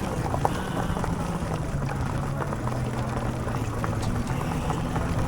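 Electric bike riding along: rolling noise with a steady low hum that shifts in pitch a few times.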